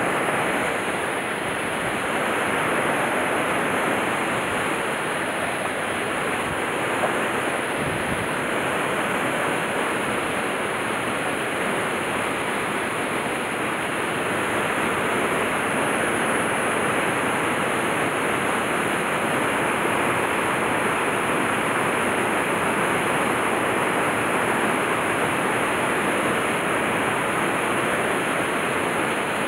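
Steady rushing of a stream's flowing water, an even noise that does not change.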